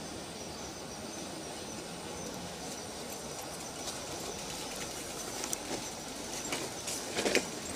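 City bicycle rolling along a dirt path: a steady rumble of tyres and frame, with a few sharp rattles and clicks from the bike in the second half, the loudest near the end.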